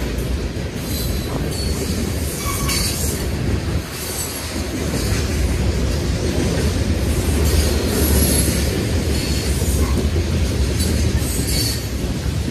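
Covered hopper cars of a freight grain train rolling past, a steady rumble of steel wheels on rail, with short high-pitched wheel squeals about a second in, near three seconds and again near the end.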